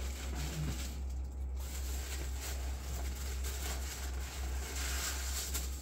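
Faint rustling and light knocks of boxed packaging and styrofoam being handled, over a steady low hum.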